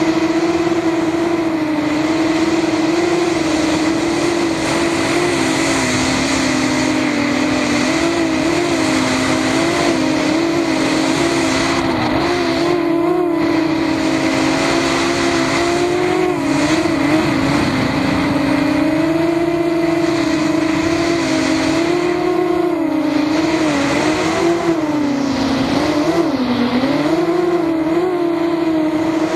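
Racing quadcopter's brushless motors and propellers whining, heard close up from a camera on its own frame. The pitch rises and falls with the throttle, dipping briefly about two-thirds through and again near the end.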